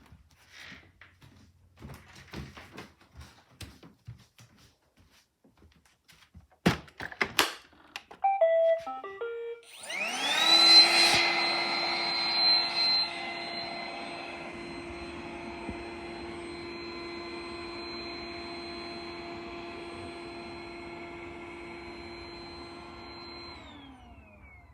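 Roomba 980 robot vacuum: two sharp clicks, then a short run of beeps, then its vacuum motor spins up with a rising whine. The motor runs steadily for about thirteen seconds and winds down near the end.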